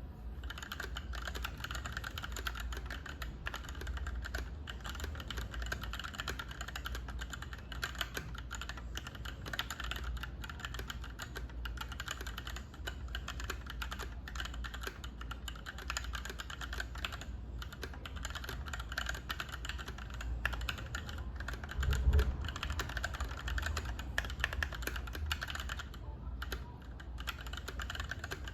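Typing on a GK64X mechanical keyboard with stock Gateron KS-3 Yellow linear switches, in a polycarbonate case with a fiberglass plate and DSA keycaps: a steady stream of key clacks, with one louder low thump about three quarters of the way through.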